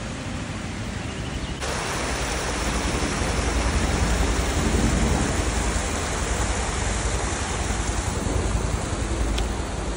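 Creek water rushing steadily over a small waterfall. It gets abruptly louder about one and a half seconds in, is loudest a few seconds later, then eases slightly.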